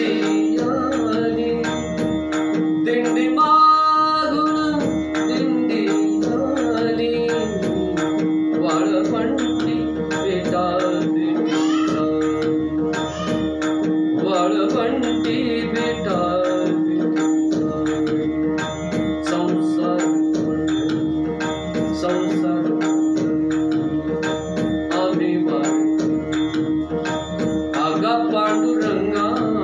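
Male singer doing riyaz, a wordless vocal line gliding and ornamented around its notes, over a steady held drone. Regular percussion strokes keep time beneath it, low thumps with high metallic taps.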